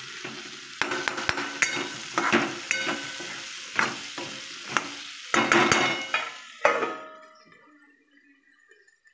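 Steel ladle scraping and clinking against a metal kadhai while stirring potatoes and peas frying in oil, with a steady sizzle underneath. Near the end the sizzle fades away.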